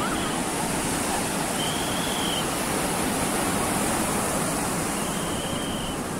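Sea surf breaking and washing up the beach, a steady rushing noise.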